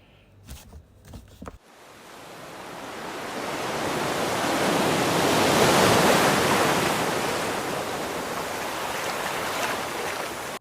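Sea surf: a wave rushing in, the noise swelling to a peak about halfway through and then holding steady. A few light knocks come just before it begins.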